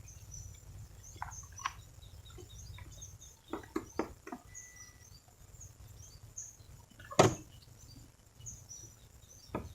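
Faint outdoor ambience: short high bird chirps scattered throughout over a steady low rumble, with several sharp knocks and clicks, the loudest about seven seconds in.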